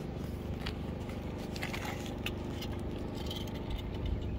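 Outdoor background noise: a low, uneven rumble with a faint steady hum and scattered small clicks and rattles.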